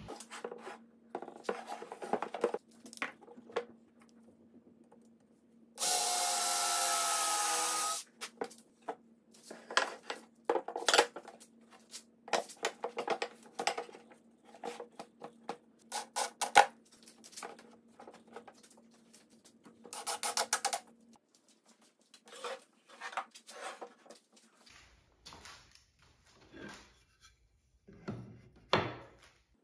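Pine chair parts being handled, slid and knocked against each other and the workbench in a string of short wooden knocks and scrapes. A power tool runs for about two seconds some six seconds in, and briefly again around twenty seconds.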